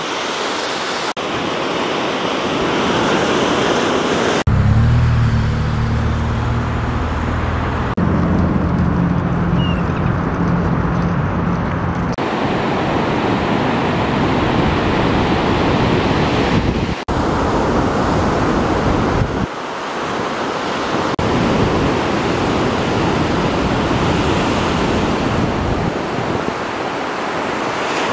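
Ocean waves breaking and washing in, a steady rushing noise with wind on the microphone, switching abruptly several times from one shot to the next. From about four seconds in to about twelve seconds in, a low steady drone sits underneath.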